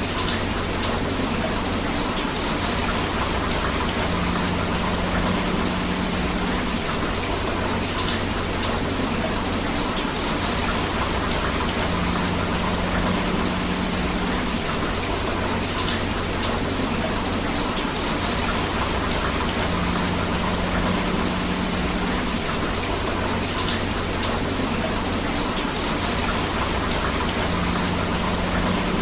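Steady rain together with flowing river water, an even unbroken wash of water noise. A faint low tone comes and goes about every eight seconds.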